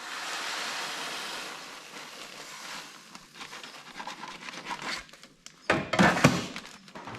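Grain sample being handled into a plastic sample bag: a steady rustling hiss of grain, then sharper crinkling and rubbing of the bag about six seconds in.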